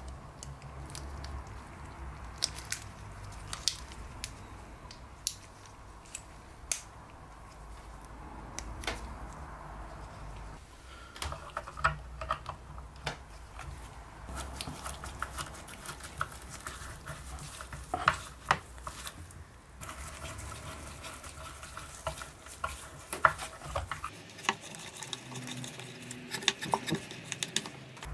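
Scattered small clicks and taps of a brass ball catch being handled and fitted to a wooden cabinet frame, over a low steady hum.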